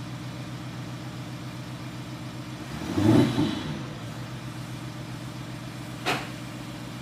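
Mercedes-Benz CLA (C118) fitted with an active sound system, idling steadily with a short rev blip about three seconds in and a single sharp crack about six seconds in.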